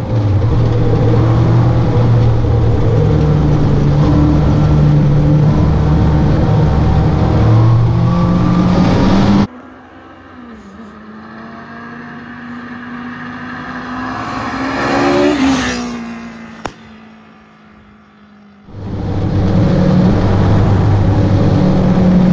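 Yamaha FZ-1 motorcycle inline-four engine in a 1969 Triumph Spitfire, running hard under way with a loud steady note. About nine seconds in it cuts to the car approaching and passing by: the engine note swells as it nears and drops in pitch as it goes past and fades. A single sharp click follows, and then the loud steady running returns for the last few seconds.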